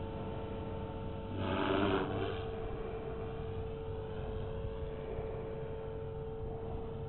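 Blade 360 CFX electric RC helicopter flying at a distance: a steady whine from its motor and rotors over a low rumble of wind on the microphone, with a brief louder rushing noise about one and a half seconds in.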